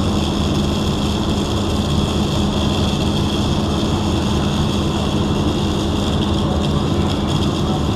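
Arc welding on a steel pipe: the steady crackle and hiss of the welding arc over a constant electrical hum from the welding machines.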